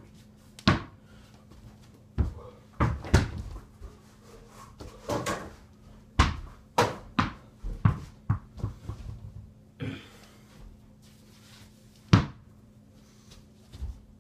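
A small indoor basketball bouncing on the floor and knocking against a mini hoop's backboard on a door: a string of irregular sharp thuds and knocks, coming thickest in a quick run around the middle.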